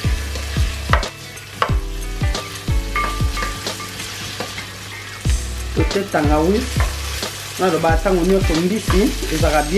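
Sliced onions sizzling as they fry in oil in a stainless steel pot, stirred with a slotted spoon that rubs and taps against the pan. In the second half a wavering, melody-like pitched sound joins in.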